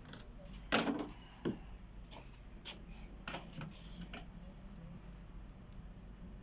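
A few sharp clicks and light knocks from hands handling engine parts or tools, the loudest two within the first second and a half, over a low steady hum.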